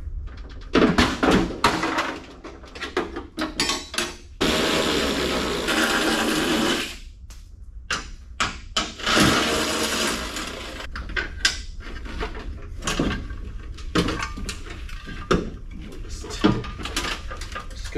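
Handheld power driver running in two bursts of a couple of seconds each, about a quarter and about halfway through, backing out the bolts of a truck's battery tray. Sharp metal clanks and knocks of parts being handled come around the bursts.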